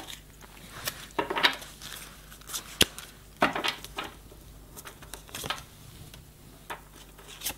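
Playing-card-sized oracle cards being handled on a wooden table: a scattered series of light clicks, taps and short swishes as cards are drawn from the deck and laid down.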